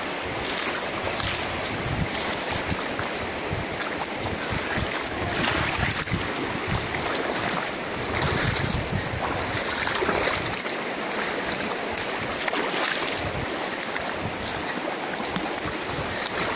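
Shallow, rocky river rushing steadily over and between stones, with wind buffeting the microphone at times.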